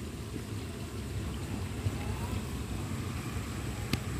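Steady low outdoor rumble by the riverbank, with one sharp click near the end.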